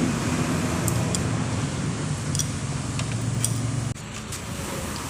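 Steady background rumble with a low hum, with a few light clicks of tools on metal; the rumble drops suddenly about four seconds in.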